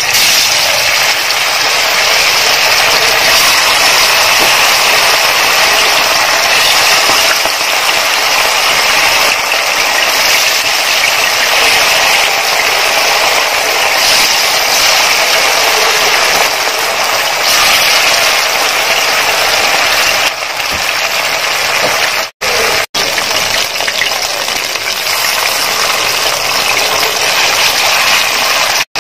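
Marinated bone-in chicken pieces deep-frying in hot oil: a loud, steady sizzle, with two brief dropouts about three-quarters of the way through.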